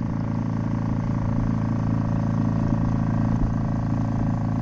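A yacht's engine running steadily as the boat motors along under power.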